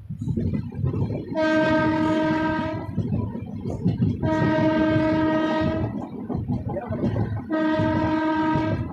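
Indian Railways electric locomotive horn sounding three long, steady blasts, each about a second and a half, over the continuous rumble of the coaches running on the rails.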